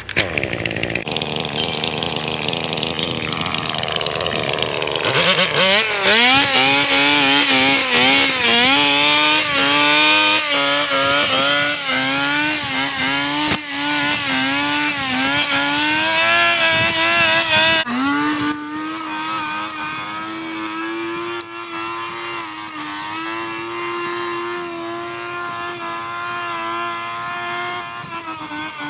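Petrol brush cutter engine running: it revs up about five seconds in, its pitch rising and dipping repeatedly as the throttle and cutting load change, then runs steadier at high speed from about eighteen seconds in.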